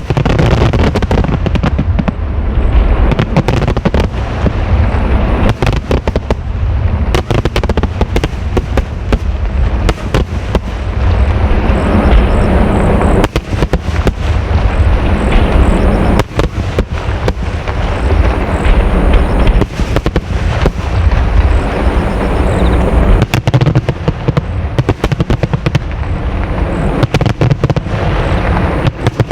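Fireworks display: a dense, continuous barrage of shell bursts, many bangs a second overlapping on a heavy low rumble, with crackling between them.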